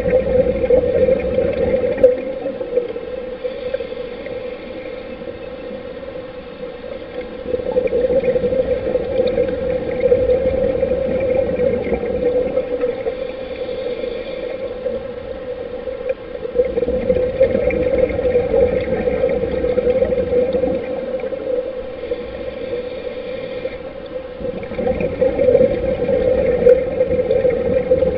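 Underwater scuba-diving sound: a diver's regulator breathing, with a rush of exhaled bubbles lasting about four seconds that comes back roughly every eight seconds, over a steady hum.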